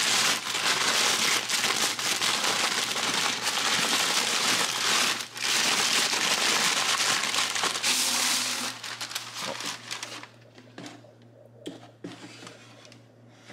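Thin white wrapping paper crinkling and crumpling continuously as it is pulled off a cylindrical model shell casing. The crinkling stops about nine seconds in, leaving quieter handling with a few light taps.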